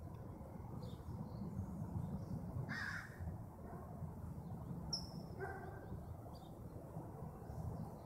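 A crow cawing twice, about three seconds and five and a half seconds in, over a steady low rumble, with a brief high chirp from another bird near the middle.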